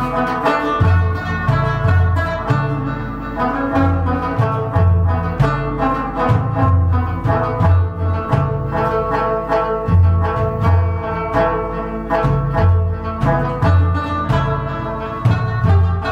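Rubab, a plucked lute, playing a brisk instrumental tune of quick plucked notes over a repeating pattern of low notes.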